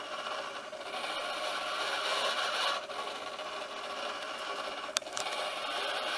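Homemade ventilator running: its sail-winch servo whirs as it winds in the cord and pulls the arm down on the Ambu bag. The noise swells and eases with the squeeze, and there is a sharp click about five seconds in.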